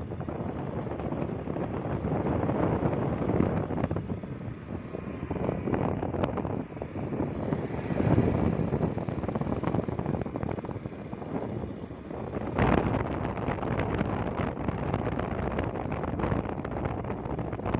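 Wind buffeting the microphone from a moving vehicle, a rough rushing noise that swells and dips, over the road noise of the vehicle's travel. A sharper gust comes about twelve and a half seconds in.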